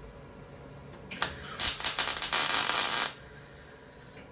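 MIG welder arcing as it lays a short weld on a sheet-metal plug in a car firewall: a dense crackle that starts about a second in, grows louder and stops abruptly about two seconds later.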